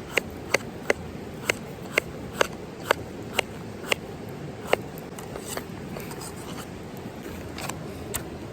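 Knife chopping on a cutting board: about ten sharp, even chops at roughly two a second, stopping about five seconds in, after which only a few faint taps remain.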